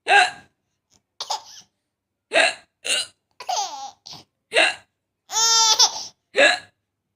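A mother's hiccups: about eight short, squeaky, high-pitched vocal bursts, some rising and falling in pitch, mixed with laughter.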